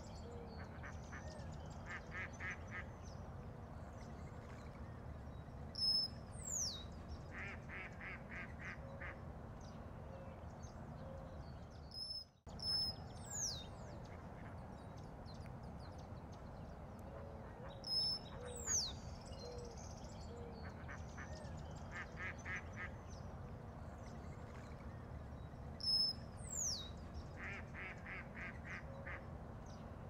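Birds calling over a steady low background: repeated sharp whistles sweeping downward, short rapid trills of about five notes, and low short calls. The sound drops out briefly about twelve seconds in, then the same sequence of calls repeats.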